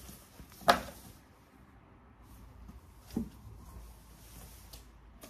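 Clothes being handled out of a box: faint rustling of fabric, with a sharp knock about a second in and a softer knock about three seconds in.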